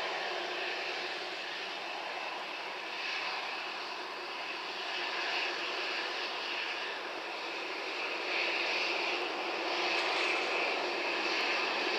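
Boeing 737's jet engines running steadily at low thrust as the airliner taxis, a continuous rushing whine with slight swells.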